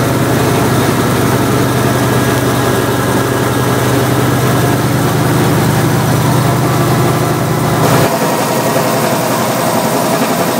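Antique WWII high-pressure torpedo/dive air compressor running steadily, driven by its V8 engine. About eight seconds in, the deep low drone cuts off abruptly and a lighter running noise carries on.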